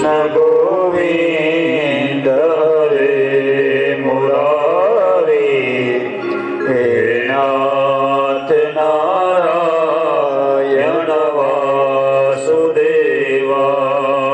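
A man chanting a Sanskrit invocation verse in a slow, sung style, the melody rising and falling over a steady low drone.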